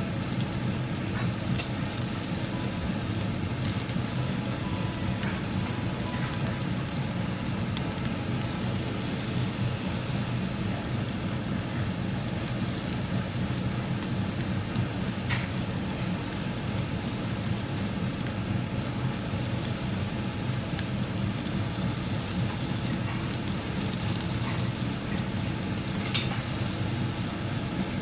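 Thin slices of beef sizzling steadily on the wire-mesh grate of a Korean tabletop barbecue grill. A few sharp clicks come through now and then, one of them about two seconds before the end.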